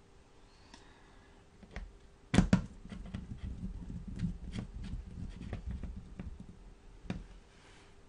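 Small screwdriver driving a screw into the plastic bottom cover of a Samsung netbook lying on a wooden table: two sharp knocks about two and a half seconds in, then a few seconds of low scraping with scattered clicks, and one last click near the end.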